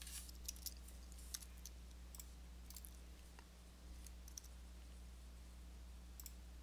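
Faint, irregular clicks of a computer mouse and keyboard as hotkeys are pressed, over a low steady electrical hum.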